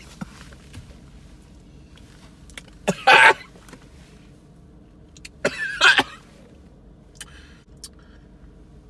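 A man coughs twice, the first into his hand about three seconds in, the second near six seconds.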